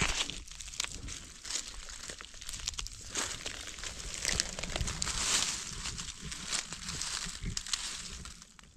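Dry fallen leaves crackling and rustling as someone moves through and handles the leaf litter, with many small snaps. Loudest about halfway through.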